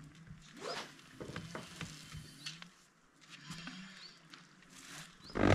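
Faint scattered clicks and rustles close by, with a bird giving a few short rising chirps every second or so. A louder thump right at the end.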